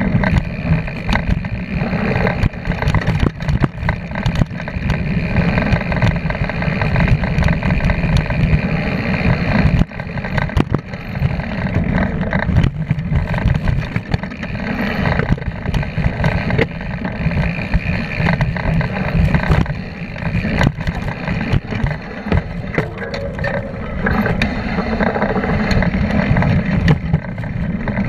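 Mountain bike descending a dirt singletrack fast: wind buffeting the handlebar-mounted camera's microphone as a steady low rumble, with the knobby tyre rolling over dirt and many short knocks and rattles as the bike hits bumps.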